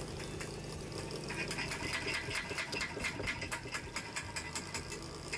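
Hydraulic drive head turning a steel helical pier shaft into the soil, powered by a steadily running hydraulic power unit. About a second in, a fast, even clicking starts and keeps going over the hum.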